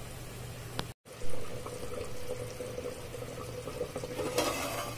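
Ivy gourd curry simmering gently over a low flame in a clay pot half-covered with a steel plate, with a steady bubbling. A brief scrape a little after four seconds as the steel plate lid is taken hold of with a cloth.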